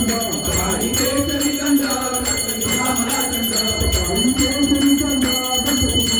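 Temple hand bell ringing continuously through the aarti, its steady high ringing tones under a group of voices singing the aarti.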